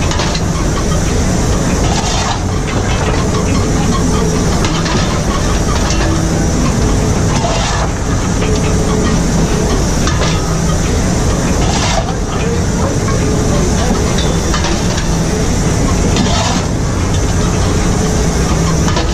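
Cab noise of the LNER Class A4 steam locomotive 60009 running, a steady rumble and steam hiss around the open firehole. Coal is shovelled into the firebox, with a short scrape or clash of the shovel every couple of seconds.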